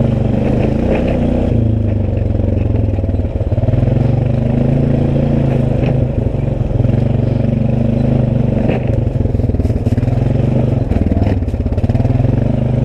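ATV engine running steadily while riding, its pitch shifting a few times with the throttle. A cluster of short knocks and rattles comes around ten seconds in.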